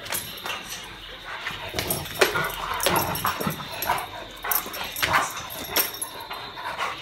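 A Weimaraner giving short, irregular whines and yips while it tugs and bites at a cloth in rough play.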